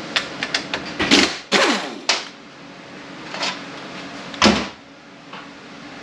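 Air-powered wrench run in several short bursts against bolts on an automatic transmission, each burst a loud hiss and whir that winds down in pitch. A few light metal clicks come before the first bursts.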